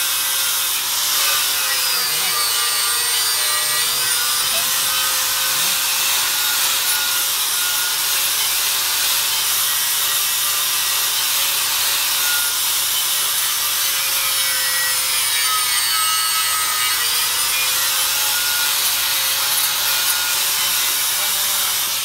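Angle grinder with a flap disc grinding a metal sheet: a continuous harsh grinding hiss over the motor's steady whine, which dips slightly in pitch twice.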